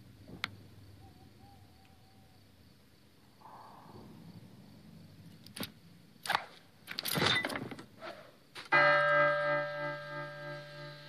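A few sharp knocks and clatters, then a church bell struck once about nine seconds in, loud, its hum ringing on with a slow pulsing as it fades.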